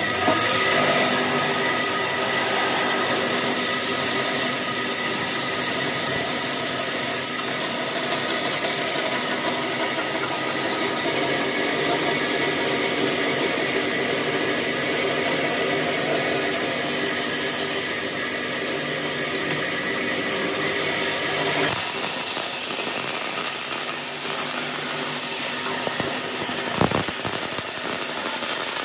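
Bandsaw running and cutting a curve through a wooden board: a steady hum of several tones over the blade's sawing noise, with a short knock near the end.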